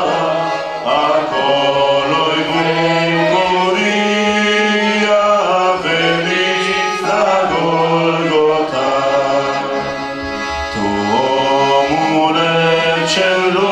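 A man singing a Romanian Christian song in long held notes over a steady instrumental accompaniment.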